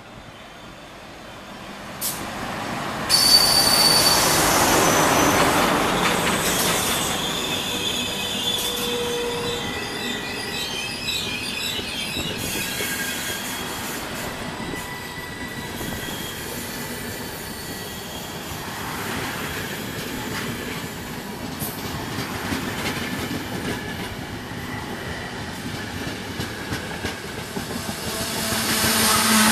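FS E.444 electric locomotive hauling a train of Intercity coaches past along the platform. It gets loud suddenly about three seconds in as the locomotive goes by, then the coaches keep up a steady rumble on the rails with high wheel squeal.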